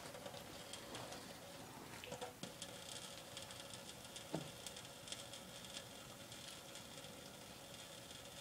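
Faint trickle of water from a kitchen faucet pattering into the sink: a light steady hiss with many small irregular drips and taps, and a couple of slightly louder ones.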